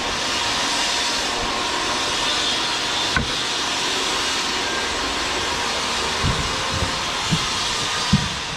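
Steady, loud machine noise, an even hiss-like whir, with one sharp knock about three seconds in and a few short, low thumps near the end.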